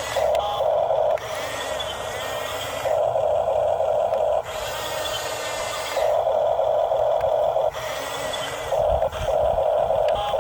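Electric motor and gearbox of a radio-controlled model construction vehicle whining in repeated spurts of a second or two, four times, with a quieter drone in between.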